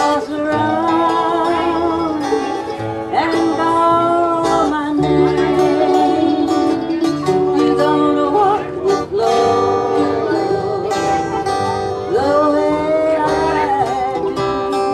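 Acoustic country string band (upright bass, mandolin, banjo and acoustic guitar) playing an instrumental passage, with a lead line that slides between notes over the strummed chords and walking bass.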